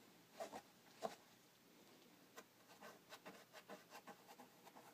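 Faint rubbing and scratching of fingers on an old metal license plate, working off road grime softened by degreaser. There are a few light taps in the first second, then a run of quick, scratchy strokes.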